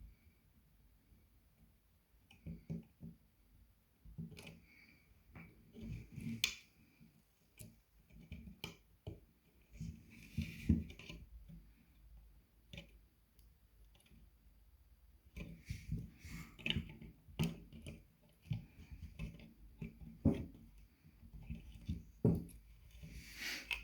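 Hand work on a graphics card and its cooling fan: irregular small clicks, taps and light knocks of plastic and metal parts being handled, spaced unevenly and coming thicker in the second half.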